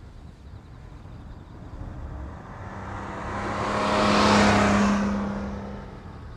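A vehicle passing by: a steady hum and rushing noise swell to a peak about four seconds in, then fade away.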